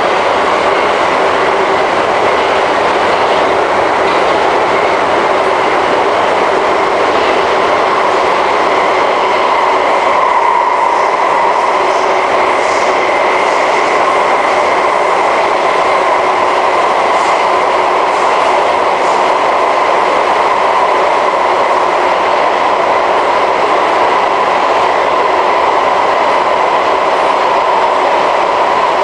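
SMRT C151 metro train running at a steady speed, heard from inside the passenger car: an even rumble of wheels on rail with a steady high hum over it.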